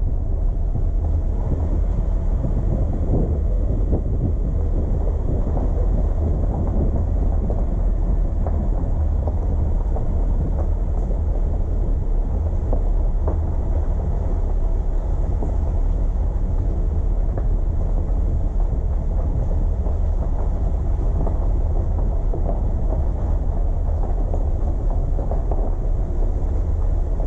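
Steady low rumble of a car driving: road and engine noise, with wind buffeting the microphone.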